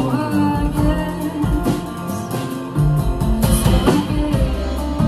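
Live band playing a song: strummed acoustic guitars and electric guitar over a drum kit.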